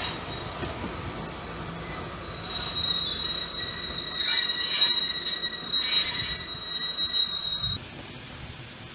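Railway carriage wheels squealing on the rails as a steam-hauled train of wooden-bodied teak coaches rolls past over a low rumble. The high steady squeal comes in about two and a half seconds in and cuts off suddenly near the end.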